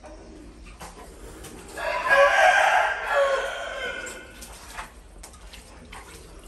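A rooster crowing once, a single call lasting about two and a half seconds that starts a couple of seconds in and is the loudest sound here. A few faint clicks come around it.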